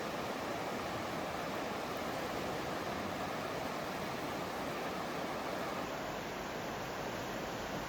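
Steady rushing noise that holds even throughout.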